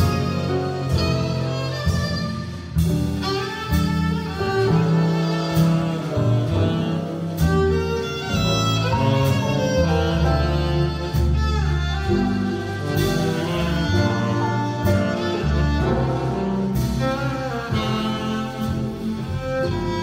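Small jazz band playing live, with a violin over upright bass, piano and drums.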